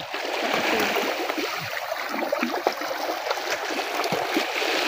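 Small sea waves washing among shoreline rocks: a steady rushing wash with a few faint clicks through it.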